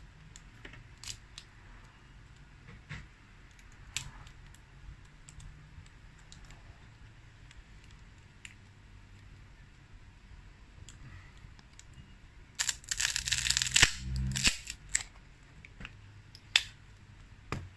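Light clicks and taps of tools and gloved fingers on an opened phone, then about two seconds of loud crackling as the phone's lithium-polymer battery is pulled free of its adhesive, followed by a few more clicks.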